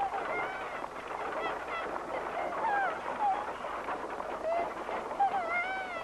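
A flock of birds calling over one another: many short calls that rise and fall in pitch, overlapping without pause.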